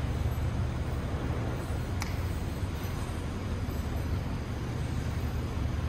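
Steady low rumble of background noise in a garage bay, with a single sharp click about two seconds in.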